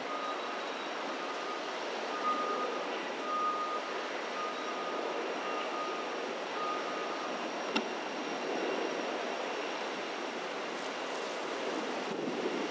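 Cars of a Union Pacific grain train rolling past in a steady rushing noise mixed with wind. A thin high squeal comes and goes through the first half, and a single sharp click comes about eight seconds in.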